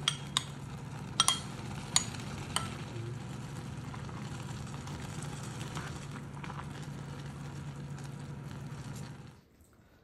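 Ramen broth with soft tofu simmering and sizzling in a pan over a steady low hum, with a handful of sharp clinks in the first three seconds as conch are added to the pot. The sizzling cuts off suddenly near the end.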